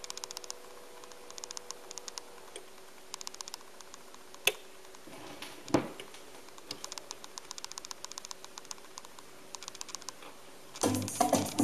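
Technics SL-5 linear-tracking turntable with a record spinning: faint rapid clicking runs throughout, with a low steady hum for the first couple of seconds. There is a sharp click about four and a half seconds in and a soft thump near six seconds. Music from the record starts loudly near the end.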